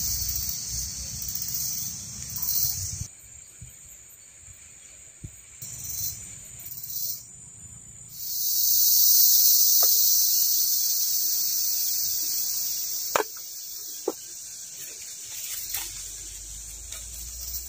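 Rainforest insects droning in a loud, high-pitched buzz that starts and stops. It swells to its loudest about eight seconds in, then slowly fades, with a couple of sharp clicks near the end.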